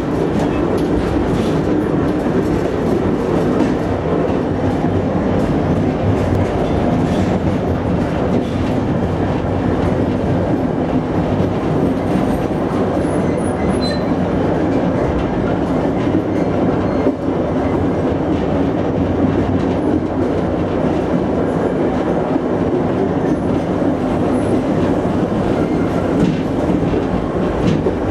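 Railway coach rolling on track, heard from inside the car: a steady wheel-on-rail rumble with occasional clicks as the wheels pass over rail joints and points.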